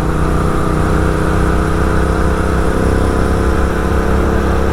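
Superbike with a full-system aftermarket exhaust cruising at a steady engine speed, mixed with wind and road noise on the rider's microphone.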